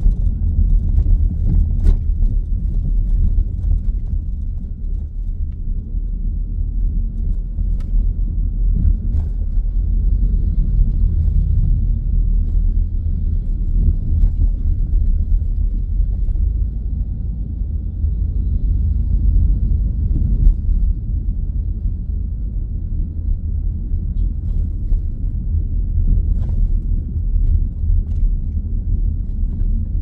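Mitsubishi Grandis minivan heard from inside the cabin while driving: a steady low rumble of engine and road noise, with a few faint ticks scattered through.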